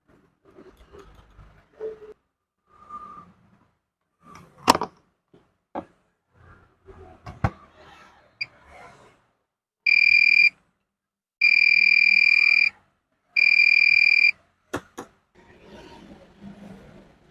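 Digital multimeter's continuity buzzer giving three steady, high-pitched beeps of about half a second to a second and a half each. Before them come sharp clicks and rustling of test probes being handled on a circuit board, and two more clicks come after.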